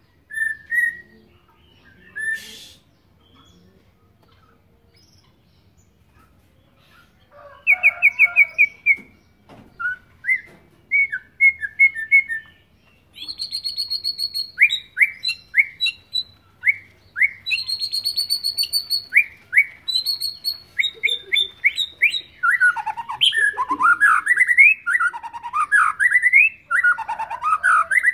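Young white-rumped shama practising its song. A few short calls, then from about seven seconds in a stream of quick repeated notes, falling whistles and high trills that grows more varied and nearly continuous towards the end. The bird is still learning to sing.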